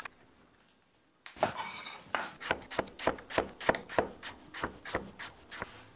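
Kitchen knife slicing a white onion on a wooden cutting board: a run of sharp knife taps against the board, about three a second, starting about a second in.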